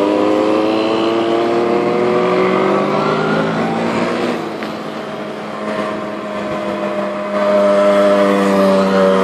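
Mopeds and small motorcycles riding past one after another, their small engines running, with the pitch sliding as each goes by. The sound dips briefly around the middle, then grows louder again as the next machine passes in the last couple of seconds.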